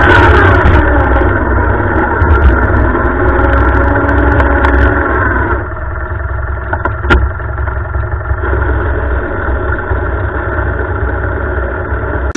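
Lawn tractor engine running steadily while the tractor is mired in a muddy creek. About halfway through it drops back to a lower, quieter note. A single sharp knock comes about seven seconds in.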